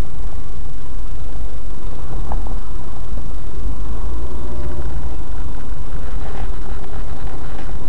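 Car driving slowly, heard from inside the cabin: a steady, heavy low engine and road rumble.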